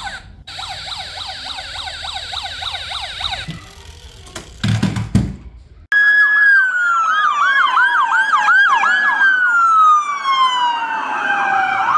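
Electronic police siren. It starts with a fast repeating yelp, goes quieter with a few knocks, then a louder siren cuts in suddenly about six seconds in. This one glides slowly down and back up, with a fast yelp layered over it at first.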